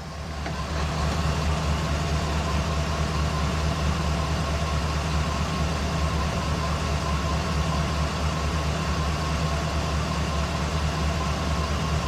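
Gasoline engine of a 2005 Chevy Express G2500 van idling steadily at about 550 rpm. The engine has a P0300 random cylinder misfire code and a complaint of running rough.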